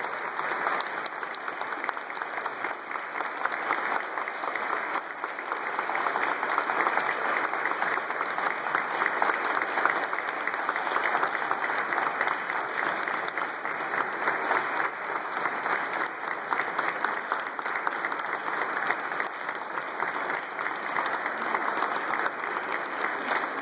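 A congregation applauding: many hands clapping at once in a steady, unbroken patter that grows a little louder a few seconds in.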